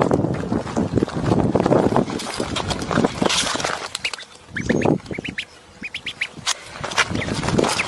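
A duckling peeping: short, high calls that rise in pitch, coming in quick runs from about halfway through. A rough rustling noise fills the first two seconds.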